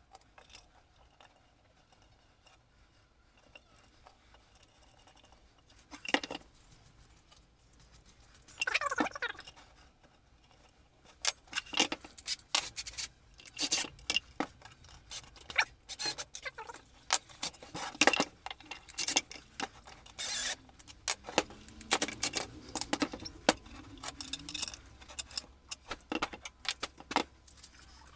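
Metal hardware and tools being handled on a wooden panel: many quick clinks and knocks starting about six seconds in, with short runs of a cordless drill-driver fastening the bolts.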